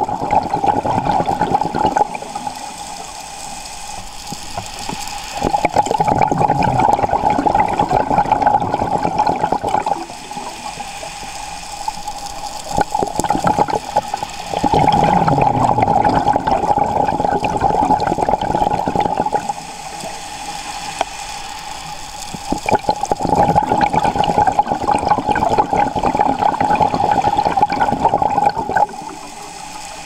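Scuba diver's exhaled bubbles from the regulator gurgling past the underwater camera housing in long bursts every several seconds, with quieter gaps between breaths.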